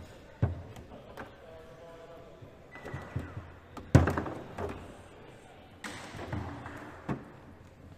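Foosball play on a Leonhart table: the ball knocks against the player figures and the table walls in sharp, separate thuds, the loudest about halfway through.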